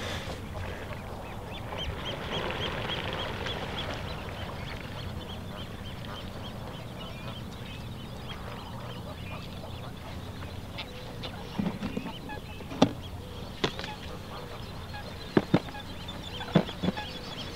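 Waterfowl calling, geese honking among them. In the second half come a handful of sharp clicks or knocks, the loudest sounds.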